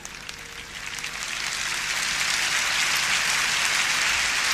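A large stadium crowd applauding: scattered claps build over the first couple of seconds into a full, steady wash of applause.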